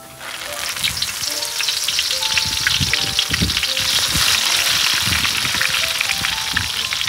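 Holy basil leaves deep-frying in hot oil: a loud, dense sizzle with a constant patter of crackles that builds over the first second, holds steady, and cuts off suddenly at the end.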